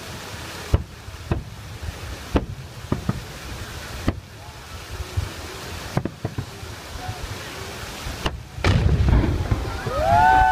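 Fireworks salute shells bursting overhead, a sharp bang about every one and a half to two seconds with smaller cracks between, over a steady splashing hiss of fountains. Near the end a louder rumble sets in, and a voice shouts one long call that rises and falls.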